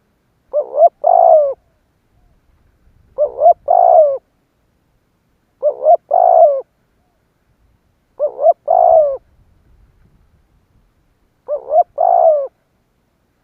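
Spotted dove cooing: five phrases about two and a half seconds apart, each two short coos followed by a longer drawn-out one.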